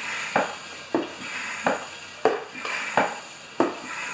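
Vacuum oil extractor's suction tube slurping the last of the oil out of a lawn mower engine's sump, air and oil drawn up in short gulps about every two-thirds of a second over a steady hiss.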